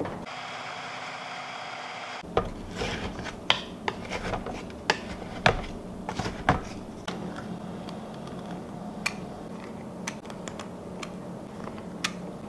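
Kitchen utensils knocking and scraping against a food processor bowl and a metal baking sheet while energy-ball mixture is scooped out: irregular clicks and knocks, busiest in the first half, over a faint steady hum.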